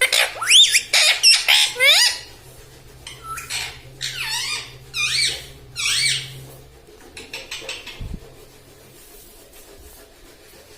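Indian ringneck parrot calling: a quick run of loud, sharp calls sweeping up and down in pitch over the first two seconds, then softer, scattered calls until about six seconds in.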